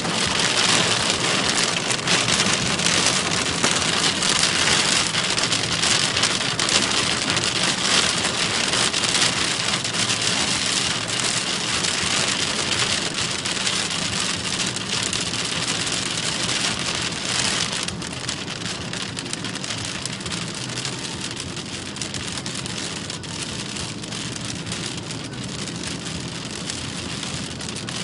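Torrential rain drumming hard on a car's roof and windscreen, heard from inside the car, with the low, steady running of the car's engine underneath. The rain noise drops suddenly about two-thirds of the way through and carries on somewhat quieter.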